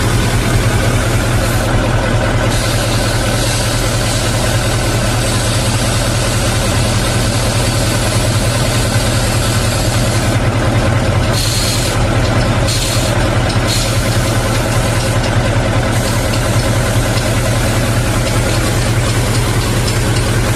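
Compressed air hissing out of the opened drain valve of a Hino Profia transit mixer's air tank, blowing out water that has collected in the tank, over the truck's diesel engine idling steadily. The hiss drops briefly a couple of seconds in and several times in the middle.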